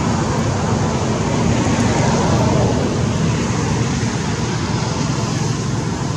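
Steady background noise of road traffic, continuous and even, with no distinct events standing out.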